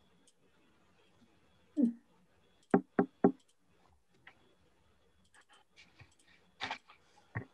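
Scattered sharp clicks of a computer mouse and keyboard as text is selected and deleted: three quick clicks about three seconds in, and a few more near the end.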